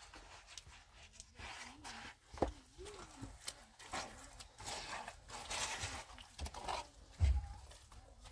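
Plaster trowel scraping wet stone-powder plaster on a cinder-block wall and in a metal basin, in irregular strokes with a heavy knock about seven seconds in. Livestock bleat faintly in the background.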